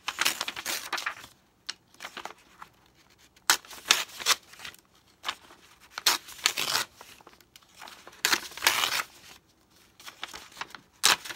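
Pages being torn out of an old hardcover book at the spine: several separate paper rips with short pauses between them.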